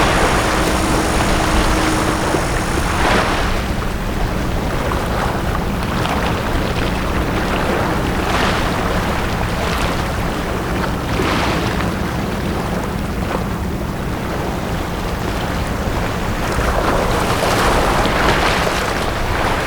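Small sea waves washing in on a beach every few seconds, each a rising and falling swash, over a steady low rumble. A faint steady hum with a high whine fades out about three seconds in.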